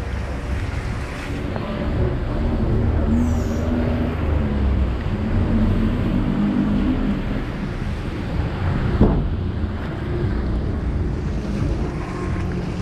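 Street ambience: a steady low rumble of traffic and wind buffeting the microphone, with a single sharp knock about nine seconds in.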